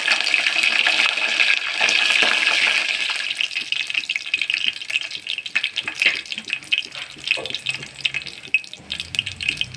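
Tempering sizzling in hot oil as dried red chillies go in with crushed garlic, mustard seeds and cumin: a loud hiss for about the first three seconds that thins into scattered crackles and pops.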